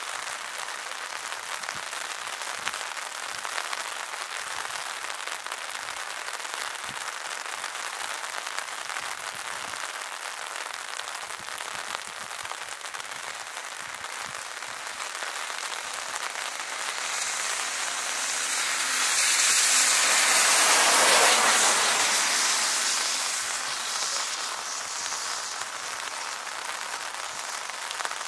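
Jet engine noise swelling to a peak about 20 to 22 seconds in and then fading as a military jet goes past, over a steady hiss of rain.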